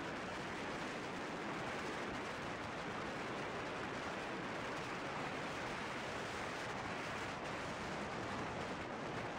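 Steady rushing wind noise buffeting the camera's microphone on a moving motorcycle, mixed with tyre and road noise; no distinct engine note stands out.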